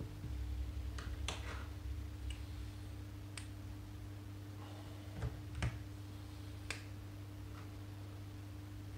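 Light, sharp clicks and taps of small plastic lab tubes and a plastic pipette being handled over a plastic tube rack, several scattered clicks over a faint steady hum.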